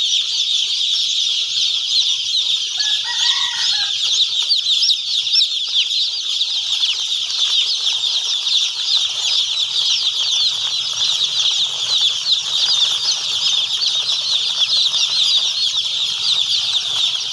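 A large flock of young chicks peeping all at once: a dense, continuous chorus of many overlapping high-pitched cheeps.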